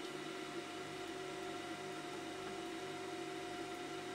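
Steady faint hum and hiss, with a thin steady whine, from a running desoldering station while its heated gun tip sits on a circuit-board solder joint, melting the solder before the vacuum is triggered.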